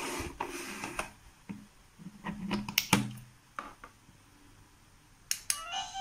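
Scattered clicks and knocks of a plastic wireless doorbell receiver and push-button transmitter being handled and pressed. Near the end the receiver starts playing its electronic chime.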